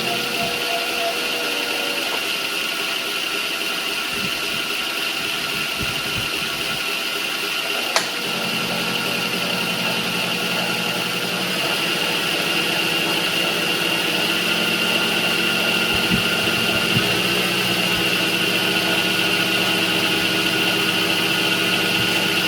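Milling machine running, its end mill cutting a slot in 7075 aluminum, with a steady whine. There is a single sharp click about eight seconds in, and the sound grows slightly louder partway through.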